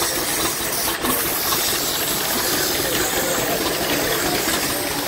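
120-grit sandpaper held against a wooden baseball bat spinning on a flat-belt-driven lathe, giving a steady, even hiss as the wood is sanded smooth.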